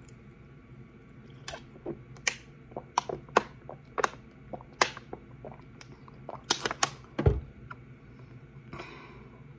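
Thin plastic water bottle with a sport cap crackling and popping in irregular sharp clicks as water is drunk from it, ending with a heavier thump about seven seconds in.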